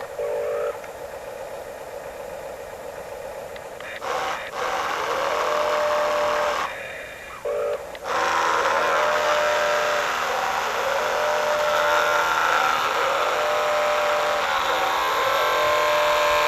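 Remote-control toy construction vehicle's small electric motors and gearboxes whining in spurts, the pitch wavering as they work, with two short beeps.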